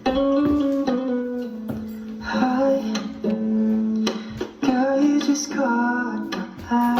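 Music: a strummed acoustic guitar with a voice singing over it.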